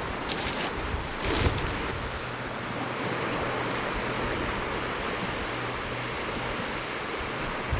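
Sea waves washing onto the beach, a steady rushing noise, with some wind on the microphone. A few short knocks in the first second and a half.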